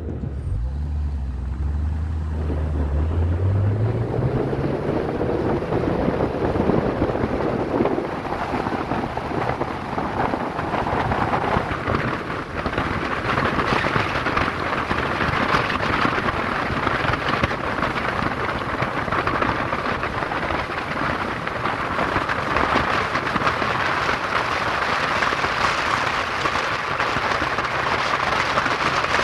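BMW Z3 accelerating: the engine note rises over the first few seconds, then a steady loud rushing noise takes over and covers it.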